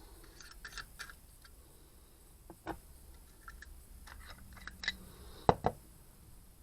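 Small clicks and taps of a spray gun and its parts being handled, with a sharper double click about five and a half seconds in.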